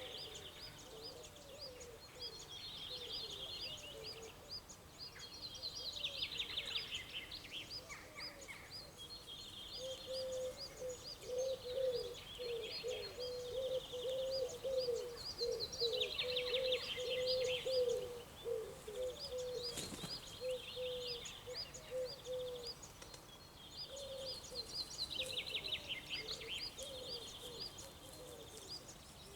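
Several birds singing. One song ends in a falling trill and repeats about every nine to ten seconds, over quick high chirps. Through the middle comes a run of low repeated calls, and there is one brief sharp sound about twenty seconds in.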